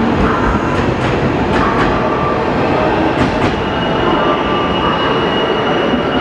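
JNR 183-series electric limited express passing close by: its wheels clack over the rail joints in pairs as each bogie goes by, and a steady high wheel squeal sets in a little past halfway.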